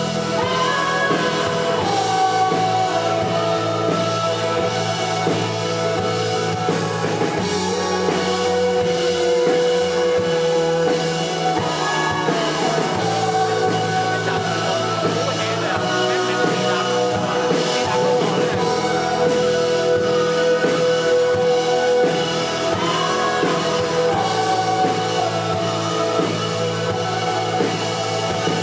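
Live electronic-pop band performance: synthesizer, drums and guitar playing with a singer's voice over them.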